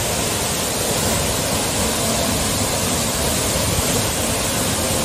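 Waterfall plunging into a rocky pool: a steady, even rush of falling water.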